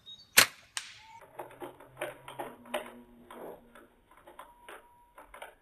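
Roller-equipped slingshot being drawn: a sharp click about half a second in, then a run of small clicks and creaks as the rubber bands are pulled out of the frame over its rollers to full draw.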